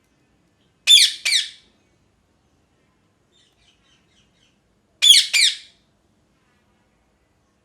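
Indian ringneck parakeet giving loud, harsh squawking calls in two pairs: two quick calls about a second in, and two more about four seconds later.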